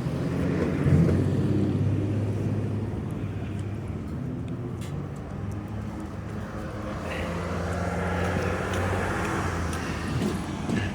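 A motor vehicle's engine running steadily with a low hum, while traffic noise swells and fades about eight to nine seconds in.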